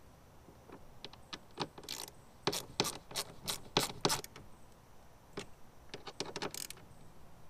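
Sharp metallic clicks of hand tools and bolts as a speaker mounting bracket is fastened on, in two runs of about three clicks a second: the first starting about a second in, the second shorter one near the end.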